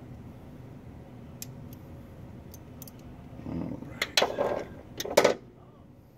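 Hand-handling noises of small parts: a few light clicks, then a short run of louder clattering knocks and rustling between about three and a half and five and a half seconds in.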